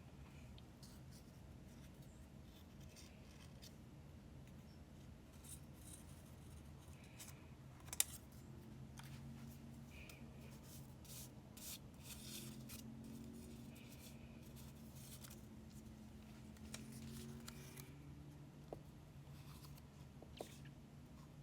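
Quiet scissors cutting paper, with the paper being handled and rubbed in between; a single sharp click about eight seconds in.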